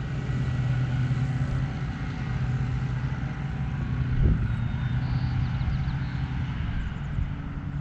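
Steady low engine hum, like a vehicle idling, with a rumble underneath and a single knock about four seconds in.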